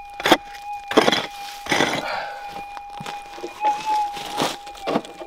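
Metal detector's steady threshold hum, warbling briefly near the middle as it responds to a target, under several sharp strikes and scrapes of a pick digging into stony ground to take the target out.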